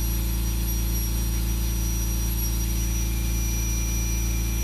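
Pen-style rotary carving tool with a football-shaped burr running steadily, a low hum with a thin high whine, as it lightly sweeps across carved wooden fish scales.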